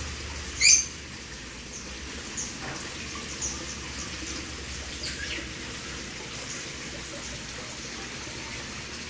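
Small birds chirping in short high calls, one much louder call about a second in, over the steady splash of a small waterfall spout running into a garden pond.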